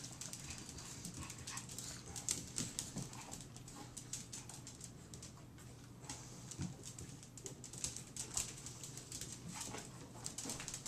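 A pack of small long-haired dogs moving about on a hard kitchen floor: scattered clicking of claws and soft whines as they beg.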